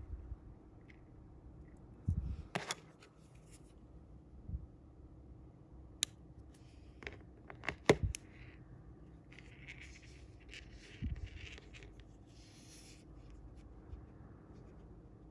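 Fingers handling monofilament fishing line while tying it to a small hook: a few sharp clicks, the loudest about eight seconds in, and soft rubbing and rustling of the line.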